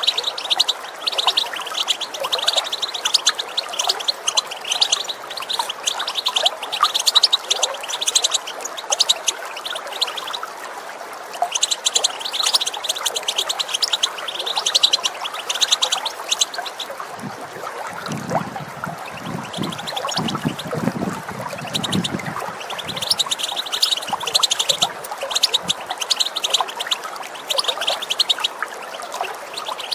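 European goldfinch giving rapid twittering 'tipitip' calls in bouts with short pauses, over the steady sound of running water. A lower rumble joins for a few seconds past the middle.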